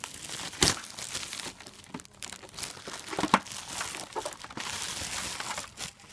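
Packaging being crinkled and rustled as a new humidifier is unwrapped, with many sharp crackles, the loudest just under a second in and again a little over three seconds in.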